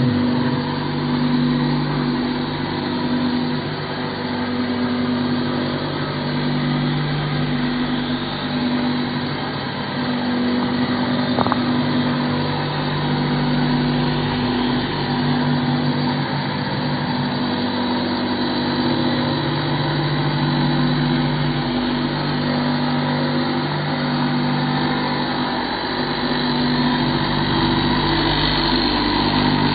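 Motor-driven knife-sharpening grinder running continuously. Its steady hum shifts every few seconds over a constant grinding hiss.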